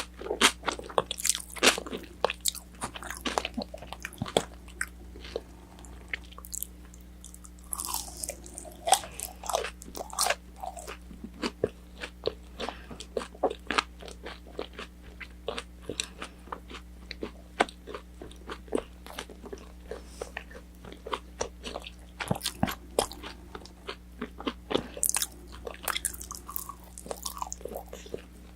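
Close-miked chewing and biting of crispy battered orange chicken, with irregular wet crunches and mouth clicks several times a second. A faint steady electrical hum sits underneath.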